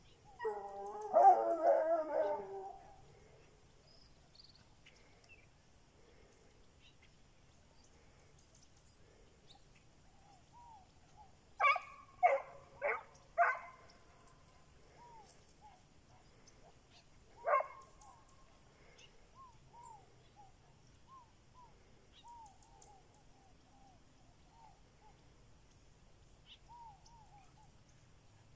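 Hunting dogs baying and barking in the brush, on the trail of a rabbit. A long wavering baying cry comes about a second in, then four barks in quick succession about twelve seconds in, one more bark a few seconds later, and faint short calls after that.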